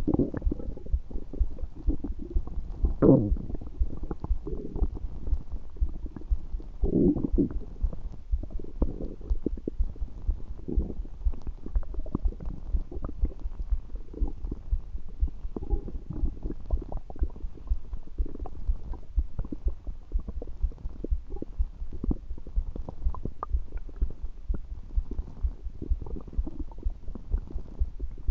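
Human stomach gurgling: a dense, continuous run of small low gurgles, with louder, longer gurgles about three seconds in and again about seven seconds in.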